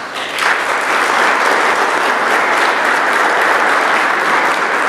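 An audience applauding: the clapping starts suddenly, builds to full strength within about half a second and stays steady.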